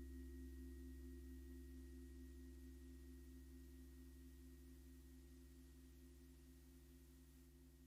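Electronic synthesizer drone of a few held tones: a deep bass tone under a pair of wavering mid tones and a thin high whistle, slowly fading out.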